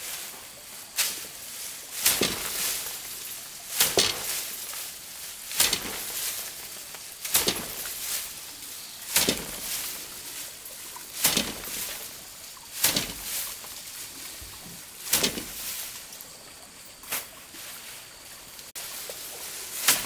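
A steady series of sharp strikes, about one every two seconds, each followed by a short rustle.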